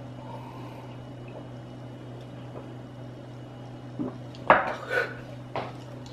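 A man gulping down a thick green veggie drink from a glass, quiet over a steady low hum, then a sharp clack about four and a half seconds in as the glass is knocked down, with a couple of shorter noises after it.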